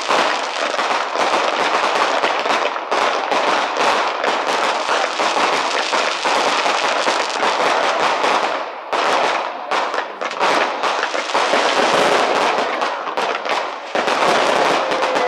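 Fireworks display: a dense, continuous crackle of many small bursts and pops, easing briefly twice, about nine and fourteen seconds in.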